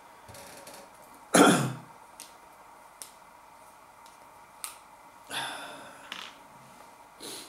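A screw cap being twisted off a small glass chilli-sauce bottle, giving a few light clicks. About a second and a half in there is a short loud cough-like burst of breath, and a softer breathy rush comes just past halfway.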